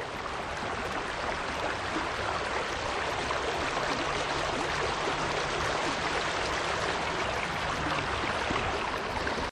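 Steady rushing of a rain-swollen creek's flowing water.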